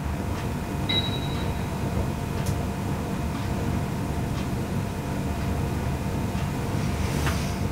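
Steady low rumbling background noise with a faint hum, a short high beep about a second in and a soft knock near the end.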